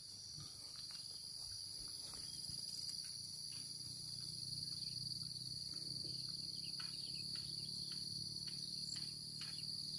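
Steady high-pitched chorus of insects in the bankside vegetation, a continuous shrill buzz, with a faint low hum underneath.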